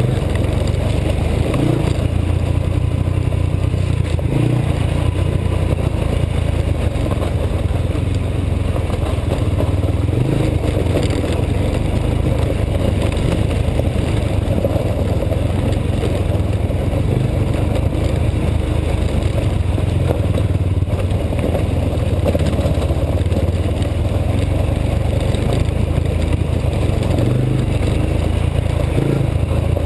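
Honda TRX 90 quad's small single-cylinder four-stroke engine running steadily as the ATV rides along a dirt trail, heard from the rider's helmet.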